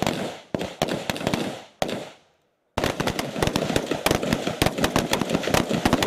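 Several M16A4 service rifles, 5.56 mm, fired on a firing line, sharp overlapping shots in quick irregular succession. The sound cuts out completely for about half a second a little after two seconds in.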